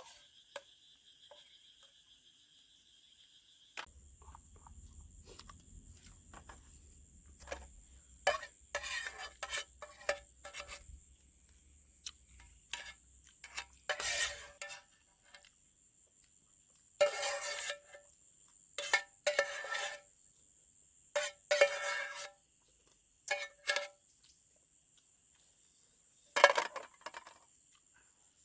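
Irregular bursts of clattering and rustling as camp gear is handled, over a steady high-pitched insect chirring.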